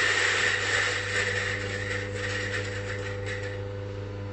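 Mahlkönig EK43 coffee grinder running, its motor humming steadily while it grinds beans into a cup at a coarse V60 setting. The crunching grinding noise thins out gradually as the beans run through.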